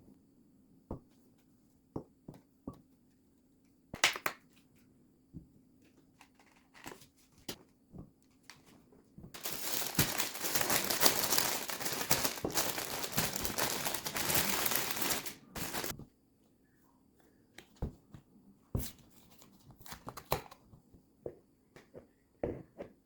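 Kitchen handling sounds: scattered light clicks and knocks of objects being handled, with a dense rustling noise lasting about six seconds midway.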